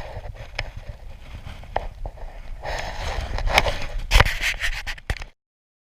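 Scraping and rubbing with irregular sharp knocks and clicks, then the sound cuts off abruptly about five seconds in.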